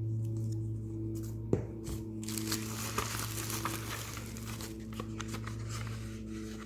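Packaging being opened by hand: a few sharp clicks, then about four seconds of crinkling and tearing, over soft background music with steady held tones.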